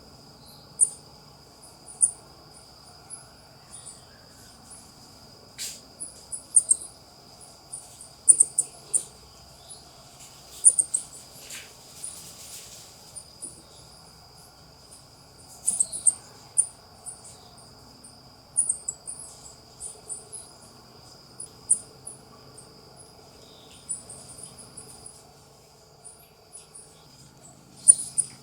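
South American ring-tailed coatis (Nasua nasua) giving short, high-pitched chirps in irregular clusters, over a steady, high insect trill.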